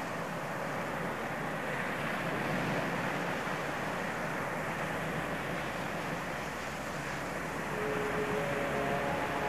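A steady rushing noise, like wind or surf, with no clear source. A few held tones come in about eight seconds in.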